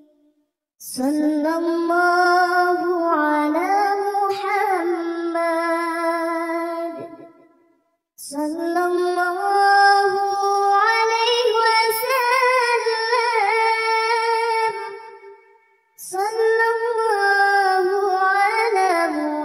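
A high, childlike voice sings a shalawat melody in three long, drawn-out and ornamented phrases, with a short break between each. No clear words are sung and no instruments are heard.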